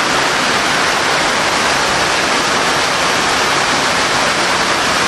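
Steady heavy rain: a dense, even hiss of falling rain that holds constant throughout.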